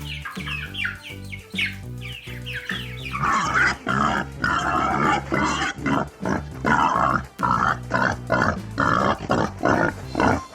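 Pig squealing and grunting in short, loud, repeated calls about twice a second, starting about three seconds in, over background music. Before that, high falling chirps.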